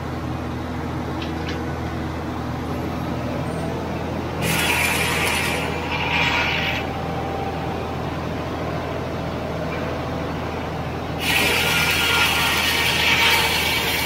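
Circular sawmill running steadily, its big blade spinning with a low machine hum. Twice the blade bites into a log with a loud, rasping cutting noise: about four and a half seconds in for roughly two seconds, then again from about eleven seconds on.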